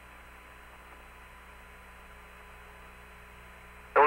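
Steady hiss with a low electrical hum on the Apollo lunar-surface radio downlink, with no voice on the loop. A band-limited radio voice cuts in abruptly near the end.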